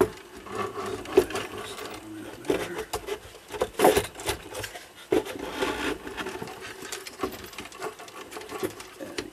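Irregular knocks, clicks and rattles as a cuckoo clock movement is handled and fitted into its wooden case. The loudest knock comes about four seconds in.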